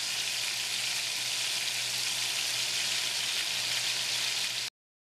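Bone-in chicken thighs sizzling steadily in hot oil in a cast iron skillet as they brown. The sizzle cuts off suddenly near the end.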